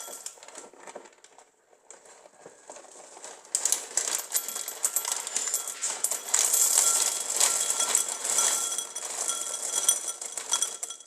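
Dry cereal pouring from the box into a bowl: a dense rattle of many small hard pieces that starts about three and a half seconds in, after some quieter rustling, and runs on for several seconds.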